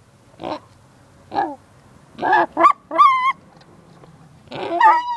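A pig calling in a rapid string of short grunts and squeals, about six in all. The highest and longest is a squeal about three seconds in, and there is another run of squeals near the end; the pig is excited.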